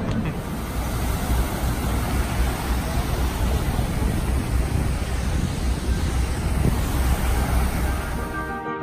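Wind rumbling on a handheld phone's microphone over city street traffic noise. It cuts off abruptly near the end.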